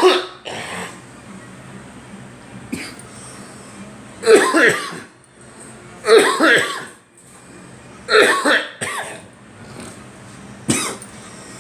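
People coughing in repeated short fits, the strongest about four, six and eight seconds in, with lighter coughs and throat clearing between.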